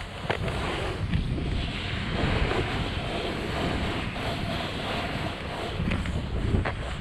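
Wind rushing over a pole-mounted action camera's microphone while a snowboard slides and carves through snow. The rushing noise swells and eases, with a few light knocks.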